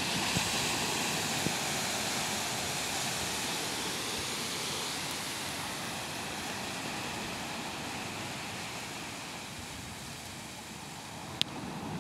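Ocean surf breaking and washing up a sandy beach: a steady rushing that slowly eases and builds again near the end. A sharp click sounds shortly before the end.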